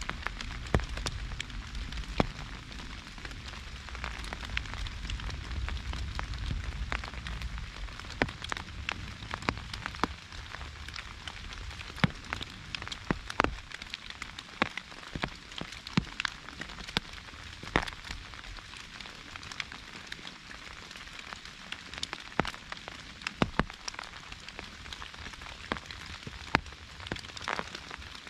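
Rain falling on an umbrella: a steady hiss with frequent sharp hits of single drops. A low rumble underlies the first eight seconds or so.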